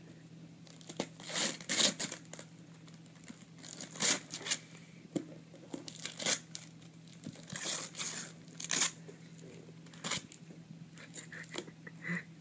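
Gift wrapping paper being torn and crinkled by hand in short, irregular rips, over a faint steady hum.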